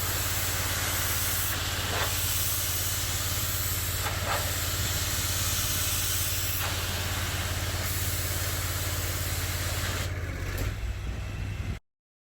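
Pressure washer spraying: a steady hiss of the water jet over the constant low hum of the machine's motor. The hiss drops away about ten seconds in, and everything cuts off abruptly shortly after.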